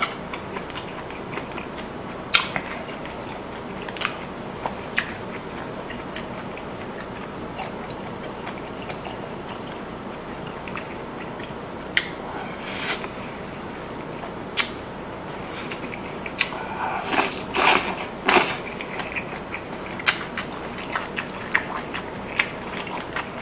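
Close-miked eating: chewing of grilled pork belly and rice, with scattered wet mouth clicks and smacks and a few light taps of utensils against the food containers.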